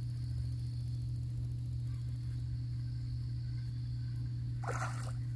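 A steady low hum under a quiet outdoor background, with one brief swishing noise near the end.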